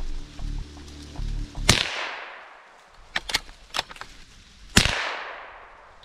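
Two .22 rifle shots about three seconds apart, each followed by a long echo fading through the woods, with a few light clicks between them.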